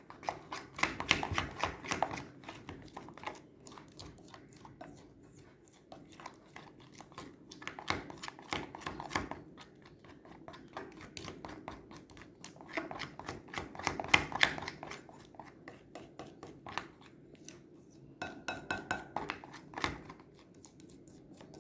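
Spoon clicking and scraping against a bowl while stirring a sticky glue mixture, in several bursts of rapid strokes with short pauses between.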